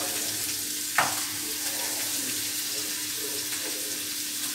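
Sliced onion sizzling steadily in olive oil in a non-stick frying pan, stirred with a wooden spoon, with one sharp knock about a second in.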